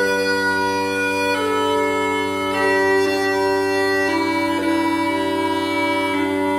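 Scottish smallpipes playing a slow hymn melody over steady, unbroken drones, the chanter moving to a new held note about every one to two seconds.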